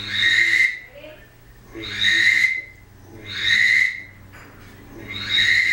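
Handmade dog-training whistle with a black walnut body and a brass shotgun-shell end, blown in four short, steady, high-pitched blasts about a second and a half apart, with breath noise in each.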